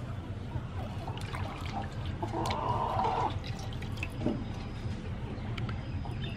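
Water splashing and dripping as a skinned squid body is rinsed by hand in a large metal basin of water, with drips falling back into the basin. A louder swish of water lasts about a second near the middle.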